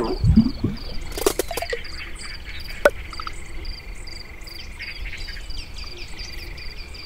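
Wildlife ambience: short high chirps repeating about three times a second over a steady high trill, with scattered bird-like calls and a single sharp click about three seconds in.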